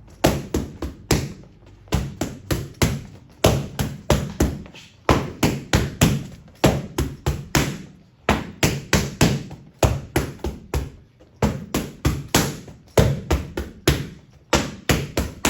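Boxing gloves striking pads in quick combinations of about three to six punches, with short pauses between the combinations.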